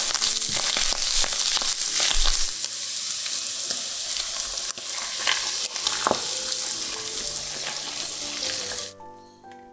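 Tuna and sliced red onion sizzling in hot oil in a nonstick frying pan, first stirred with a wooden spatula, then with beaten eggs poured over them. The sizzle cuts off suddenly near the end.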